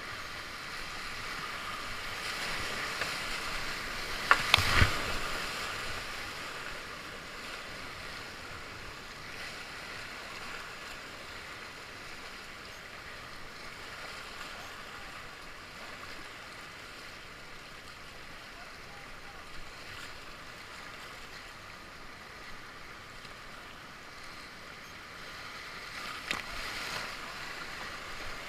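Rushing whitewater rapids, a steady hiss of moving water, with a short loud cluster of sharp knocks and splashes about four and a half seconds in and a smaller one near the end.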